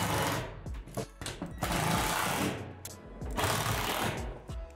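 Cordless power driver running in three short bursts of about a second each, driving self-tapping screws through roof panels into the shed's trusses.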